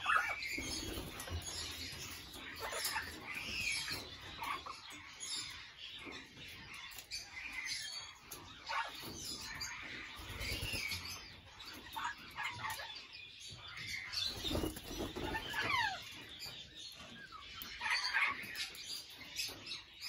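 Australian king parrots and a Port Lincoln parrot moving about, with wings flapping now and then and scattered short chirps and calls, including a couple of falling whistles about two thirds of the way through.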